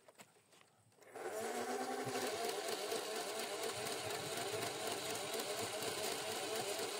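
X-Shot Insanity Ragefire battery-powered, motorized chain-fed dart blaster starting up about a second in: the motor revs up with a rising whine over about a second, then the blaster fires full-auto with a steady mechanical running and a rapid repeating rattle.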